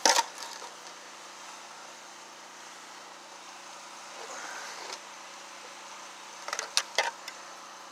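A metal shovel striking into soil with a sharp scrape at the start, then a faint steady hiss, and a few sharp knocks near the end as a rusty iron piece is handled on the shovel blade.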